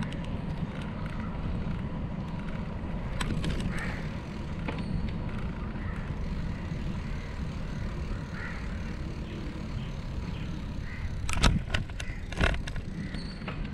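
Steady low rumble of wind and road noise on a moving camera travelling along a road, with two sharp knocks about a second apart near the end.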